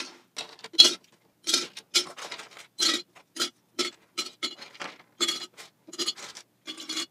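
Small plastic action-figure pieces dropped one at a time into a glass mason jar, clinking and clattering against the glass in a quick, irregular series of sharp clicks, about two or three a second.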